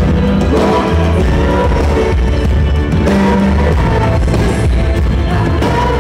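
A live band playing amplified music with singing, acoustic guitar and cello on stage, with heavy bass.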